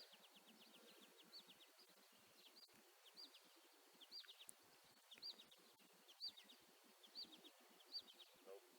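Faint, high-pitched song of a small bird: a short rising-and-falling note followed by a quick run of short descending chips, repeated about once a second.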